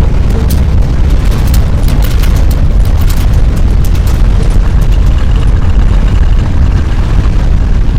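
Loud, continuous deep rumble of earthquake shaking, with sharp crackles and rattles in the first few seconds.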